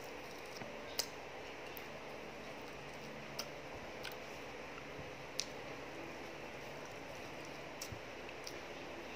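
Eating sounds: a few short, sharp clicks of utensils and mouth noises, the loudest about a second in, over a steady low hiss.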